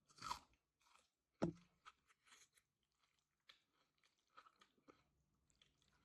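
Close-up eating sounds: a person bites into crunchy food and chews, with a sharp crunch about a second and a half in, then many small crunches and mouth clicks.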